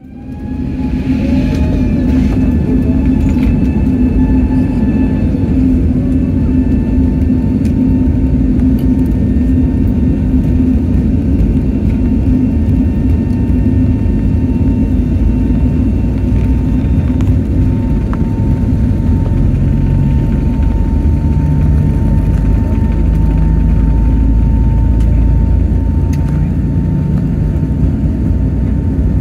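Airbus A320neo's turbofan engine heard from inside the cabin, running steadily on the ground: a deep rumble and hum under a thin, steady fan whine. The low rumble grows stronger in the last third.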